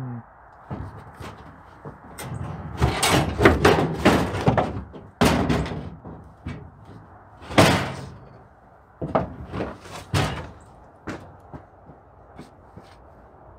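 Husky aluminium diamond-plate truck toolbox being lifted, shifted and set down on the pickup bed rails: a string of metal clunks and knocks, heaviest in the first half, thinning to light taps near the end.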